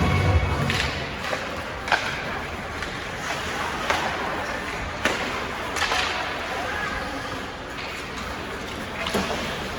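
Ice hockey play in a rink: sharp clacks of sticks and puck every second or two over a steady murmur of spectators.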